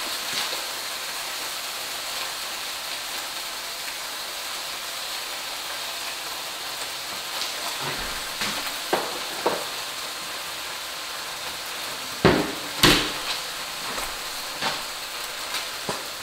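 Food sizzling in a frying pan on a gas stove, a steady hiss. From about halfway through come scattered clinks and knocks of cookware, with two louder knocks a little over halfway through.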